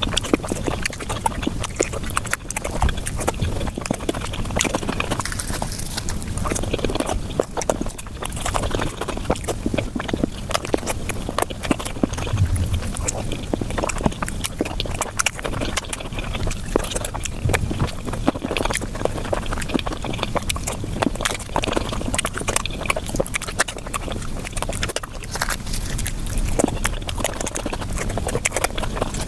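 Chewing and mouth sounds of someone eating flatbread with curry, sped up about five times, so they run together into a fast, continuous patter of wet clicks and smacks.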